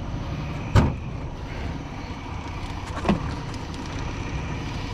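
Boat motor idling with a steady low rumble, broken by two sharp knocks against the boat: a loud one about a second in and a softer one about three seconds in.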